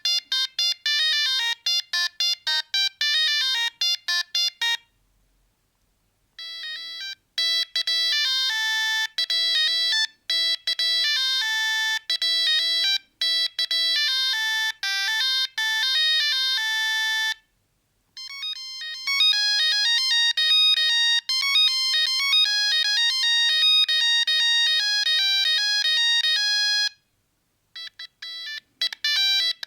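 Siemens C45 mobile phone playing beeping melodic ringtones, one note at a time, in phrases broken by short pauses.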